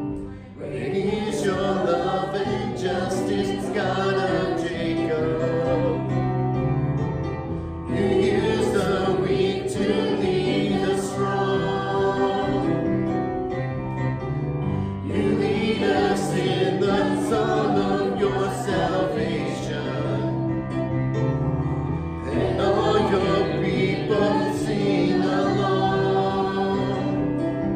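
Worship song sung by a group of voices with instrumental accompaniment, continuous and in phrases several seconds long.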